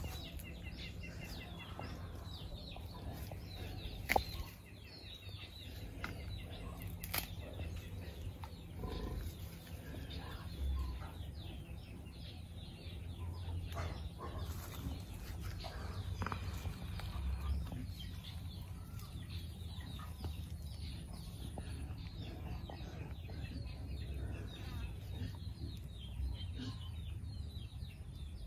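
Birds calling, many short chirps throughout, with a sharp click about four seconds in and another about seven seconds in.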